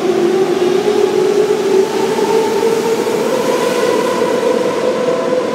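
ET 420 S-Bahn electric train moving along the platform, its traction motors whining in two tones that climb steadily in pitch as it gathers speed, over the rumble of the wheels on the rails.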